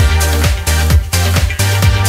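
Electronic dance music with a steady kick-drum beat, about four beats a second, over a deep bass and layered synth tones.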